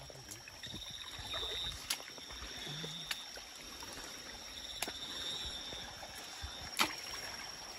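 Footsteps wading and splashing through a shallow rocky stream, with a few sharp knocks of feet or stones on rock. A steady high insect trill runs underneath.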